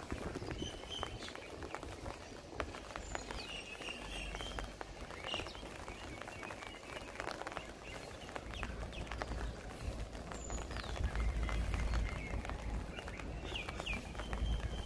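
Footsteps on wet asphalt, a steady run of short scuffing clicks, with birds chirping now and then. A low rumble rises under them about halfway through and stays to the end.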